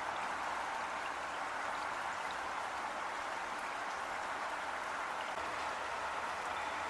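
Heavy rain falling steadily, an even hiss of many drops.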